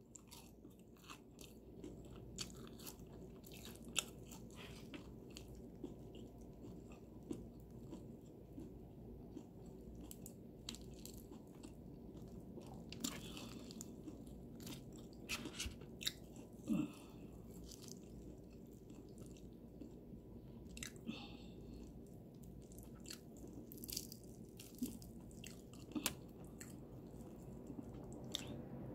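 Faint eating of Popeyes fried chicken: chewing, with irregular sharp crunches of the crispy breading, a few of them louder.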